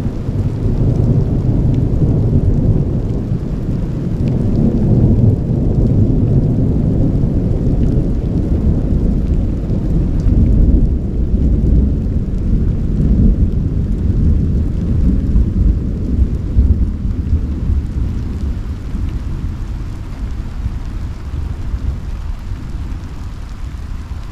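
A long, loud roll of thunder: a deep rumble that comes in suddenly, swells and rolls on for about twenty seconds, then slowly dies away near the end.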